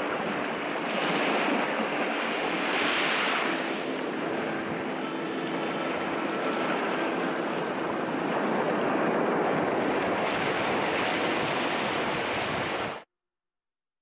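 Ocean surf breaking on a rocky shore: a steady rushing wash that swells a few times, then cuts off suddenly near the end.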